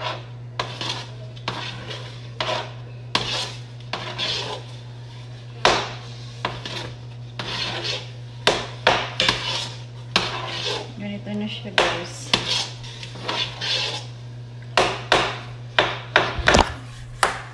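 Metal spoon scraping and clinking against the inside of a metal stockpot in many irregular strokes while stirring maja blanca, a corn and coconut-milk pudding, as it thickens. A steady low hum runs underneath.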